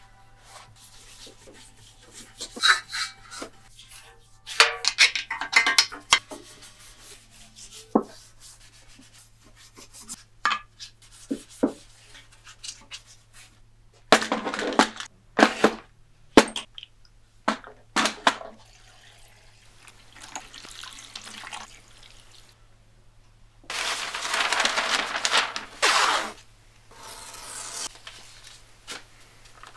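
A string of short workshop handling sounds: a rag rubbing over a cast-iron bandsaw casting, and small metal parts clattering in a steel muffin tin. About three-quarters of the way through comes a few seconds of steady rushing noise, with a low hum underneath throughout.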